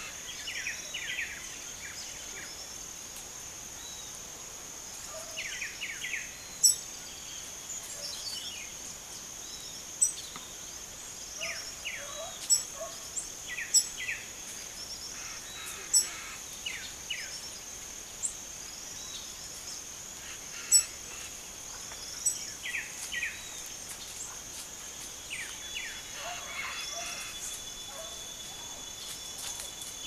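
Small birds chirping in short scattered bursts over a steady high-pitched insect drone. About six sharp, high single chirps stand out as the loudest sounds.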